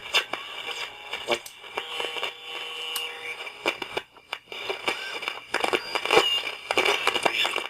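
Radio being tuned across the dial: crackling static and hiss full of clicks, with brief whistling tones between stations. It dips almost to quiet for a moment about four seconds in.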